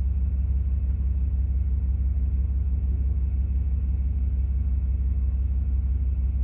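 Vehicle engine idling: a steady low rumble with a fast, even pulse.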